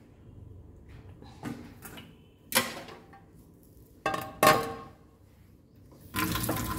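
Stainless-steel kitchenware clinking: four sharp metallic knocks, each with a short ring, the last two close together. A tap starts running near the end.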